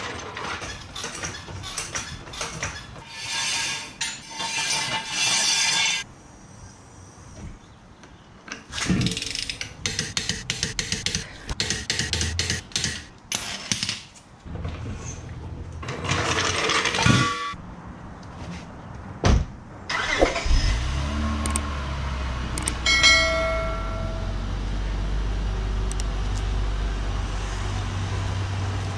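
Rapid metallic clicking and clanking of hand tools on the wheel lug nuts, then about two-thirds of the way in the Acura's engine starts and settles into a steady idle.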